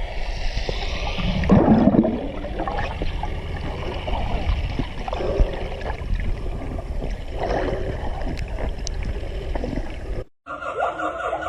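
Water gurgling and sloshing over a steady low rumble, as on a camera at or under the sea surface.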